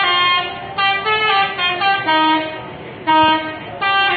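Indonesian bus 'telolet' musical horn playing a tune: a run of loud blasts of several notes at once, the pitch stepping up and down, about one blast a second.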